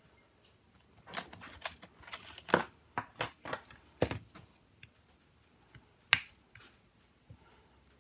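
Small clicks and taps of a metal pick against a Nokia C2-01 phone's casing as the phone is handled: a quick run of clicks from about one second in to about four and a half, then one sharp click about six seconds in.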